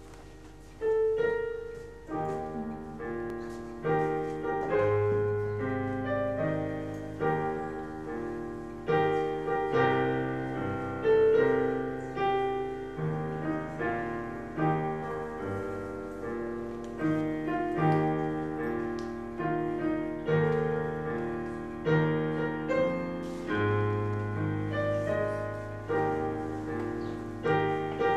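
Digital piano played in slow chords over a bass line, each chord struck and left to fade. The playing starts about a second in.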